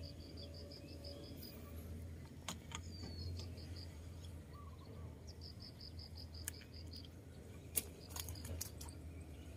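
A high, rapidly pulsed insect trill in two bouts, the first at the start and the second a little past the middle, over a low steady hum, with a few sharp clicks scattered through.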